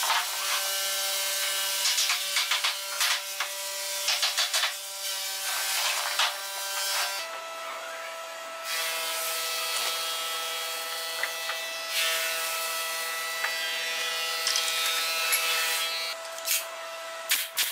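Rasping strokes of wood being rubbed by hand along a wooden frame rail, in quick clusters over a steady workshop hum. After a change about seven seconds in there is a steadier hiss, then a few light knocks near the end.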